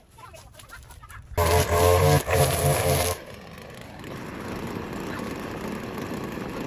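Gas string trimmer engine running at high revs for under two seconds, then dropping back to a steady idle.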